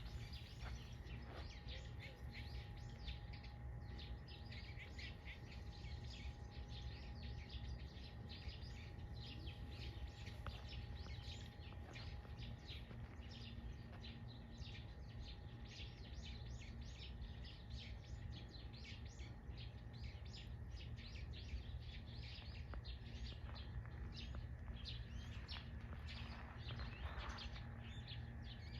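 Small birds chirping and calling continuously, with many quick high notes following one another closely, over a faint steady low rumble.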